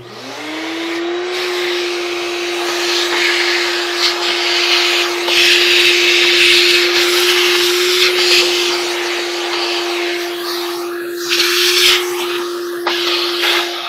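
Shop vacuum switching on, its motor whine rising to a steady pitch within about a second, with a loud rushing hiss of air through the hose that changes as the nozzle moves over the dryer's drum opening.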